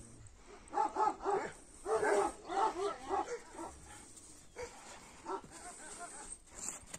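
Kangal shepherd dogs barking and yelping in quick runs of short, high calls, thickest from about one to three seconds in, with a couple more a little past the middle.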